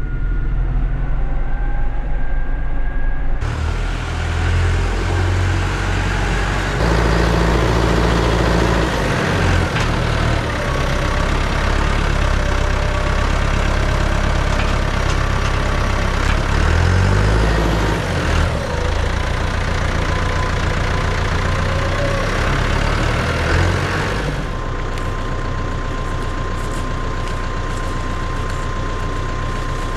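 Tractor diesel engine running, its revs rising and falling as it works. About 24 seconds in it settles to a steady idle.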